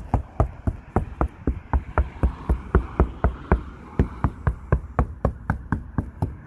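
Steady knocking on the roof of a 1987 Chevy Suburban, about four knocks a second, a knock test of the roof with a half-inch MDF panel braced against it.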